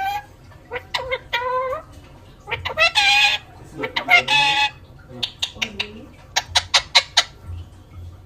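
Pet talking parrot vocalising: warbling, speech-like calls, then two harsh screeches, and a quick run of short, sharp chirps near the end.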